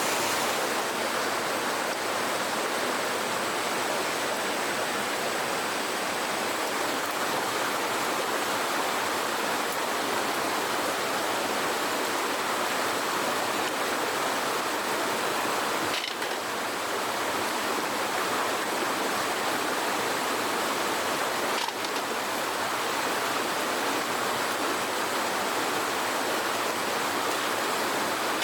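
Steady rush of flowing water, a constant hiss-like wash with two brief breaks, near the middle and about two-thirds through.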